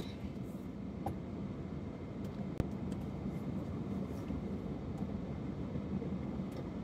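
Steady low hum of a car running, with a single sharp click about two and a half seconds in.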